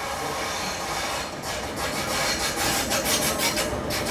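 Train running along the rails: a steady rushing, grinding noise with rapid clattering, growing a little louder about halfway through.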